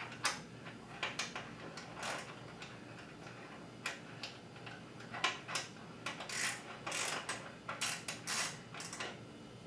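Hand tools working the docking hardware of a motorcycle sissy bar: irregular short clicks and rasps, bunched together and busiest in the second half.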